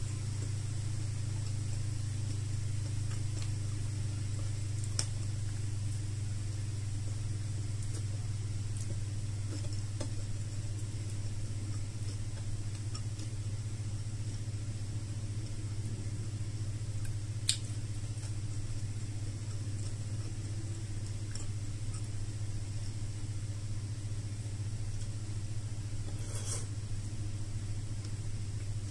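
A steady low hum, with a few isolated sharp clicks over it.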